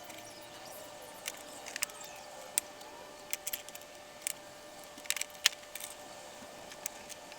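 Irregular light metallic clicks and clinks, like small hardware or hand tools being handled, over a faint steady hum. The clicks come singly and in small clusters, the sharpest about five and a half seconds in.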